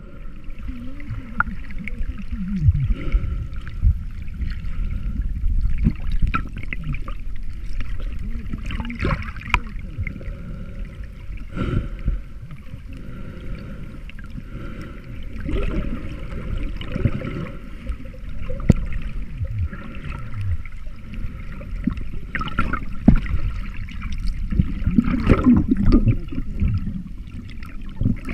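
Muffled underwater sound picked up by a submerged action camera: water gurgling and sloshing over a low rumble, with scattered short clicks.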